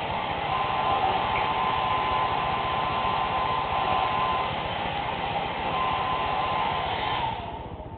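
Handheld hair dryer blowing steadily, a rush of air with a whine from its motor; near the end it is switched off and the whine drops away as it winds down.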